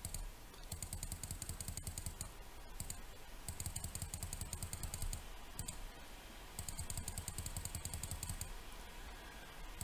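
Computer mouse button clicked rapidly over and over, in three runs of fast clicks with short pauses between them.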